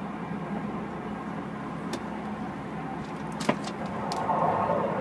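Running noise of an LA Metro Blue Line light-rail car heard from inside the crowded car: a steady rumble of wheels on track, with a sharp click about three and a half seconds in and the noise growing louder near the end.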